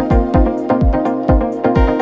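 Electronic background music: a steady kick-drum beat, about two beats a second, with crisp hits above it over held chords.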